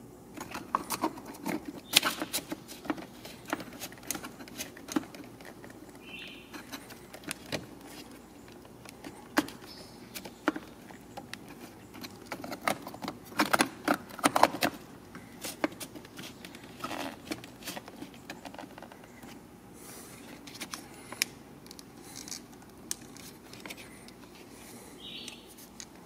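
Hands refitting the ASC actuator, its cable and electrical connectors in a car's engine bay: irregular clicks, taps and light rattles of plastic and metal parts, with a busier run of sharper clicks around the middle.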